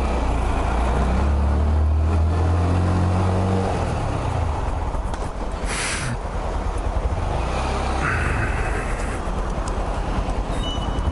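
Honda MSX125 (Grom) single-cylinder engine running as the bike rides at low speed up a garage ramp and out to the street; the engine drone is strongest for the first few seconds, then eases off. A short hiss comes about six seconds in.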